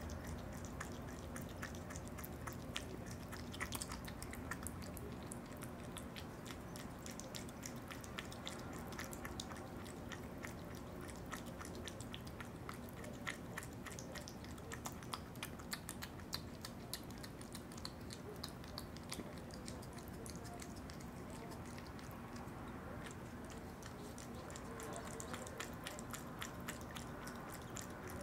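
Opossum eating yogurt: a dense, continuous run of small chewing and smacking clicks.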